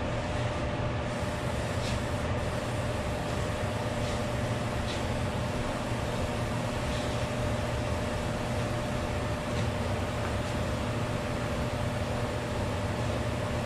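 Steady mechanical drone with a constant mid-pitched whine from a machine running in the shop, with a few faint ticks.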